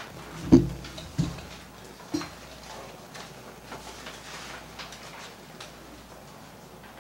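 Sheets of paper rustling and being turned over on a table, with a few sharp knocks against the table in the first couple of seconds, the loudest about half a second in, and scattered light ticks after.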